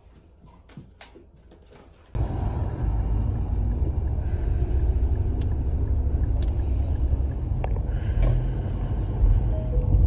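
A few faint clicks, then about two seconds in a sudden cut to a loud, steady low rumble like the road noise of a moving car, with music faintly underneath.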